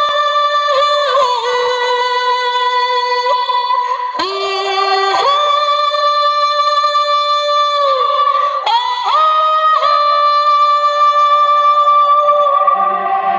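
A sound-system sound check playing a synthetic, voice-like lead line: long held notes at steady pitch that step up and down between a few pitches, in three long phrases with short breaks between them.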